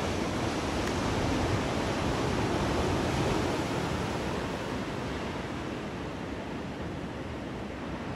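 Ocean surf: a steady rush of waves breaking and washing, swelling a little in the first few seconds and then easing.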